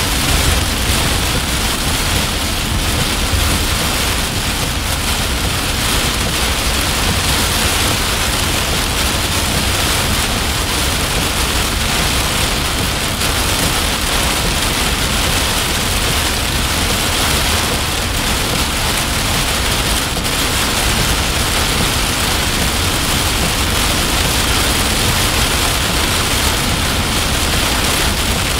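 Heavy rain pelting a car's windshield and roof, heard from inside the moving car, over a steady low rumble.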